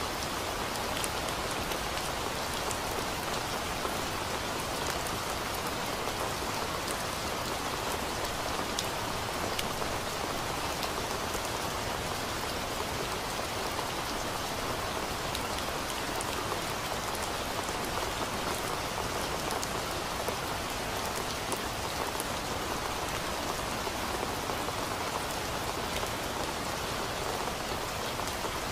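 Steady rain: an even, unbroken hiss with scattered sharp ticks of individual drops.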